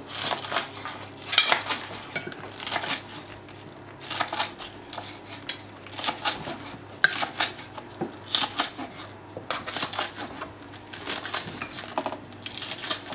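Knife dicing onions on a chopping board: short bursts of quick chopping strokes with brief pauses between them.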